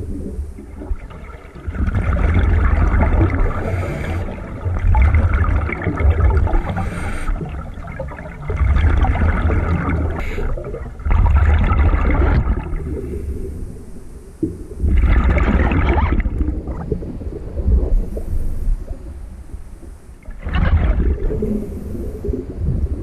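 Scuba regulator breathing heard underwater: a hiss on each inhalation and a low rumble of exhaust bubbles on each exhalation, repeating every few seconds.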